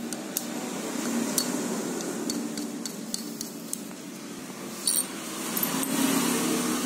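Light metallic clicks and taps of a screwdriver against the metal housing of a motorcycle starter motor as its cover bolts are worked, with a sharper clink about five seconds in. A steady low hum runs underneath.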